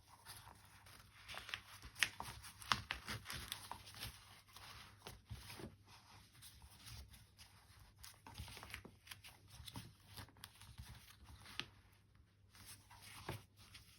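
Faint, irregular rustling and crinkling with small clicks and taps as fabric and paper are handled and worked into place on a binder cover.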